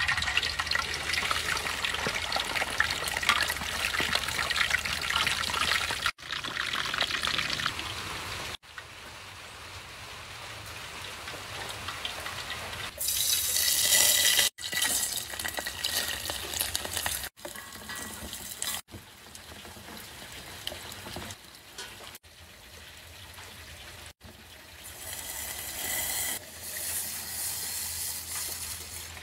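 Cooking sounds in short cuts: a whole fish sizzling in hot oil in a wok, then liquid pouring into a stainless steel pot. The pouring is loudest about halfway through and again near the end.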